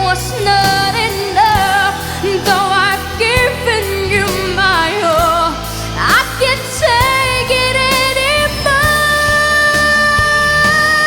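Pop ballad recording with a woman's voice singing wordless runs with vibrato over the backing. About 6 s in there is a quick upward glide, and from just under 9 s in one long note is held.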